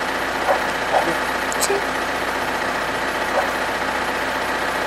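Vehicle engine running steadily, a constant mechanical drone under the scene, with a few faint short sounds on top.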